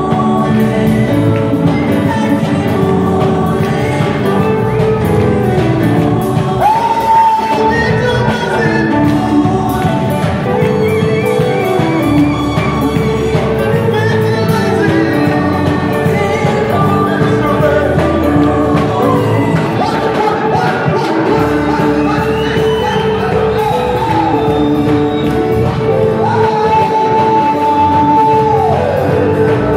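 Gospel praise song sung by a group of singers through a PA system, with keyboard accompaniment. A high note is held for a couple of seconds near the end, sliding down as it ends.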